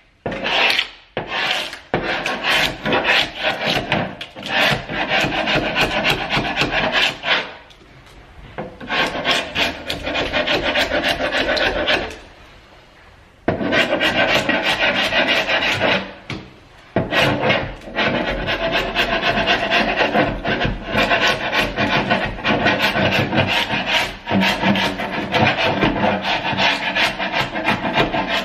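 A sharp wood chisel scraping old paint off a hardwood door panel, in runs of quick rasping strokes broken by a few brief pauses.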